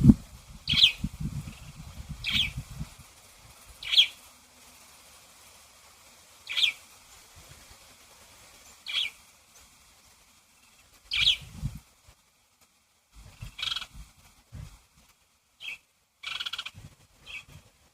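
A bird chirping outdoors: short, sharp calls repeated every second or two, with a quicker cluster near the end. Intermittent low rumbling runs underneath, strongest in the first few seconds.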